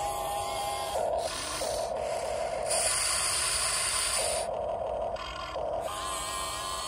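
Electric motors and gearboxes of scale RC construction vehicles whining, starting, stopping and changing pitch every second or so as different functions are run.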